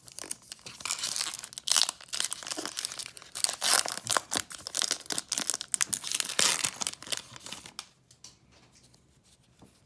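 A baseball card pack's wrapper being torn open and crinkled in the hands, with dense crackling that stops about eight seconds in.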